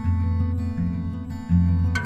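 Background music led by acoustic guitar, with a steady bass line.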